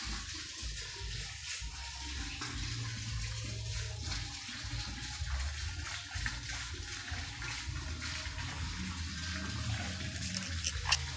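Gentle breeze buffeting the microphone as a low, uneven rumble over a steady high hiss of night insects, crickets and cicadas; a few short, sharp high calls come in near the end.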